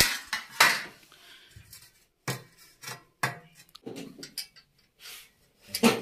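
Galvanized steel cable trunking sections clanking and clinking against each other and the concrete floor as they are handled: a series of sharp, irregular metal knocks.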